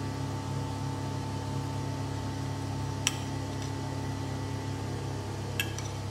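Steady low mechanical hum with a thin steady tone above it, and two light clinks of a knife and fork against a porcelain plate as a slice of braised beef is cut, about three seconds in and again near the end.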